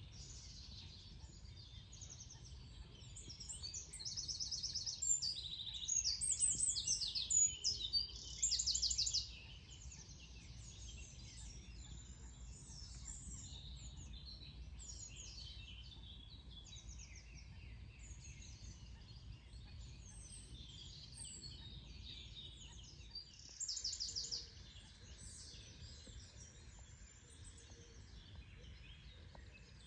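A chorus of songbirds singing at once. A nearer bird's loud, rapid trilling song stands out from about 4 to 9 seconds in and again briefly near 24 seconds, over a low, steady background rumble.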